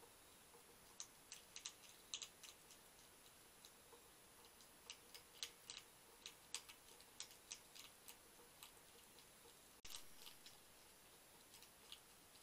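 European hedgehog crunching dry kitten biscuits from a bowl: faint, irregular crisp crunches, a few a second.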